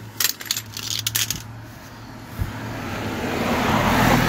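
Small metal tools and sockets clinking and clicking as they are handled on gravel, a quick cluster of clicks in the first second and a half. Then a rustle of movement that grows louder toward the end, over a steady low hum.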